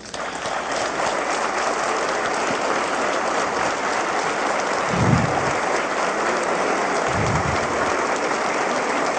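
Large audience applauding steadily: a dense, even clapping.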